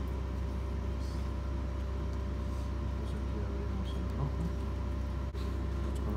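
Steady low mechanical hum with a faint steady whine over it, from machinery running in the room.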